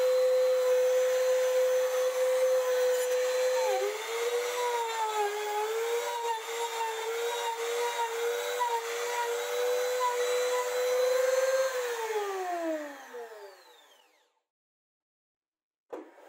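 Compact trim router running at full speed with a high steady whine. Its pitch dips and wavers as the bit cuts across a wooden slab in a planing sled. About twelve seconds in it is switched off, and the motor winds down with a falling whine to silence.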